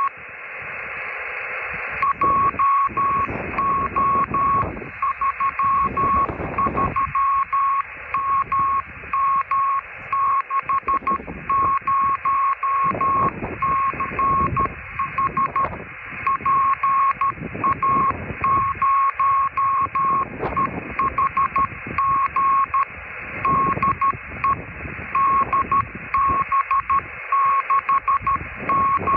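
Morse code (CW) heard through an all-mode ham transceiver's speaker: a single steady-pitched beep keyed on and off in dots and dashes over receiver hiss. The hiss runs alone for the first two seconds, then the keying starts and carries on with a few short breaks.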